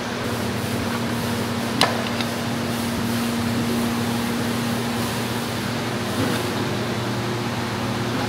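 Steady mechanical hum and rush, like a kitchen fan running. About two seconds in, a metal serving ladle clinks sharply once against the steel pot or plate, with a fainter tick just after.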